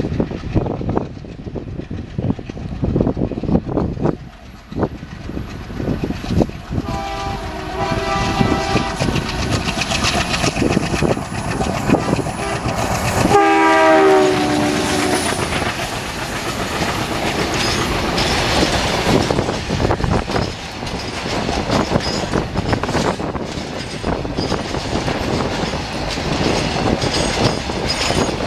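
ALCo WDG3A diesel locomotive hauling a freight train, sounding its horn for several seconds as it approaches, then a louder horn blast whose pitch drops as it passes close. The covered wagons then roll past with a steady clickety-clack of wheels over the rail joints.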